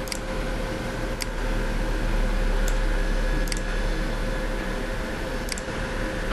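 Computer mouse clicking five times, single sharp clicks a second or two apart, over a steady low hum and hiss.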